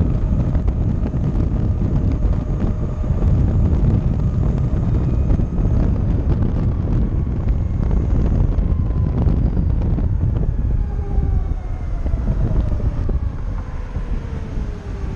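Heavy wind buffeting on the microphone while riding a Harley-Davidson LiveWire electric motorcycle. The electric motor's faint whine is heard under it, gliding down in pitch over the last few seconds.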